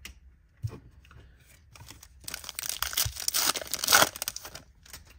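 A foil trading card pack being torn open: a couple of light handling taps, then about two seconds of crackling, crinkling rip, loudest near the end.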